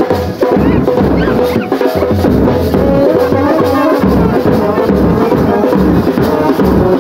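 Brass band playing a tune in unison over a steady drum beat, loud and continuous.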